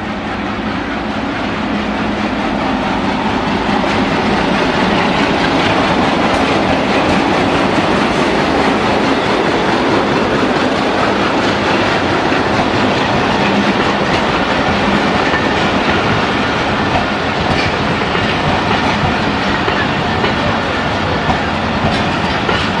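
A passenger train passing close by: the PHA-20 diesel locomotive comes past in the first few seconds, growing louder, then the coaches roll by with a steady rumble and clickety-clack of wheels over the rail joints.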